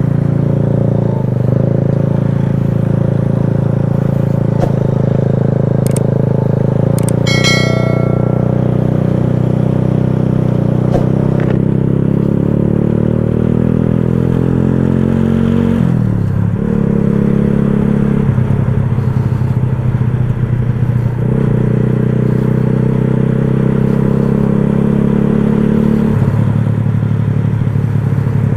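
Motorcycle engine running while riding in traffic, its pitch climbing steadily and then dropping sharply about sixteen seconds in, as at a gear change. A short high beep is heard about seven seconds in.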